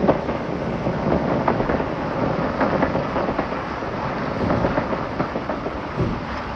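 Train running along the track: a steady running noise with frequent short clicks and rattles from the wheels and rails.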